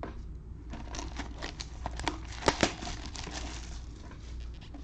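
Plastic shrink-wrap crinkling and tearing as it is pulled off a sealed box of trading cards, a run of crackles with a few sharper ones about halfway through.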